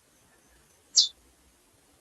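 Female chestnut-bellied seed finch (curió) giving a single short, high chirp about a second in.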